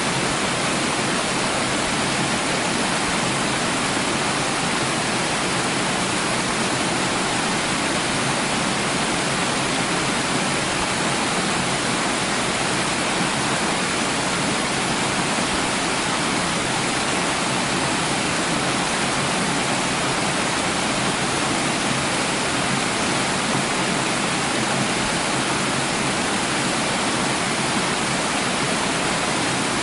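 Running water with a steady, even rush and no breaks or changes in level.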